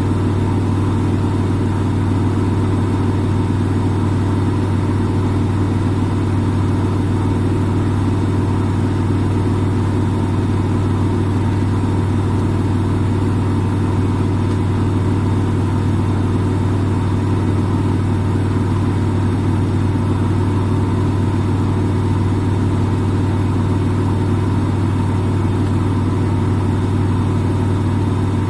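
Front-load washing machine in its spin cycle: the drum spinning at a constant speed with a steady, loud motor hum.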